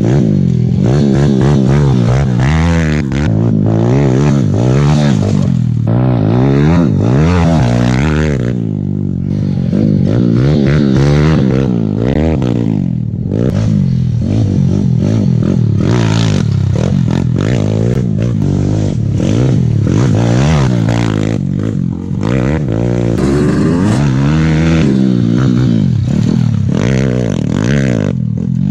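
Pit bike engines, a Kawasaki KLX110 and a Piranha 125, revving hard on a dirt track, the pitch climbing and dropping again and again through throttle and gear changes.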